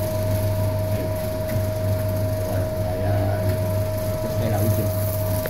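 Flow-wrap packaging machine running, a steady hum with a constant whine, as it seals a bread loaf in plastic film.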